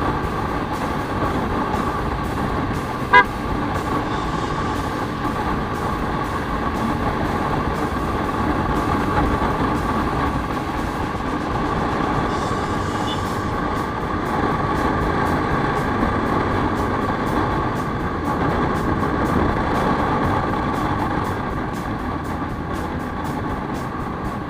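Steady road noise from a motor scooter riding in traffic: wind rush and engine drone, with one very short horn toot about three seconds in.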